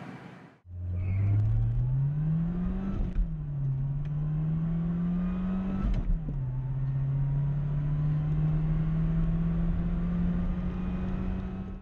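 Mercedes SLK 230 Kompressor's supercharged 2.3-litre four-cylinder engine pulling hard at full throttle with the revs climbing. There are two upshifts of the manual gearbox, each a sudden drop in revs, about 3 and 6 seconds in, then a long slow climb in the next gear. A brief dip in the sound just after the start marks the cut from the previous car's run.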